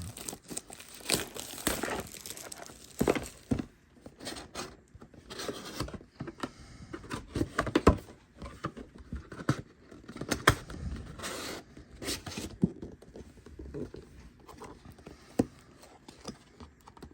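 A seal and plastic wrapping are torn and crinkled off a cardboard trading-card display box, with irregular scrapes and taps as the box is handled and opened.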